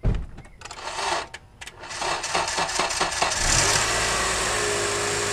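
Acura TSX's 2.4-litre i-VTEC four-cylinder engine being started: a thump and a few knocks, then cranking that catches a little over three seconds in and settles into a steady idle. This is the first start after the power steering pump and alternator were replaced.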